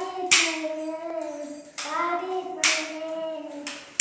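A child singing a slow song in long held notes, broken by three short loud bursts of noise: one about a third of a second in, one past the middle, one near the end.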